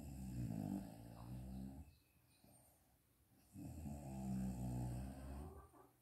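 A sleeping woman snoring: two long snores of about two seconds each, with a quiet pause between them.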